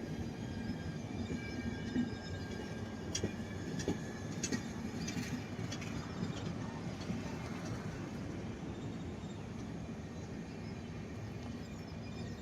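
A train running by on the rails: a steady low rumble, with a few sharp clicks near the middle and a faint high whine in the first few seconds.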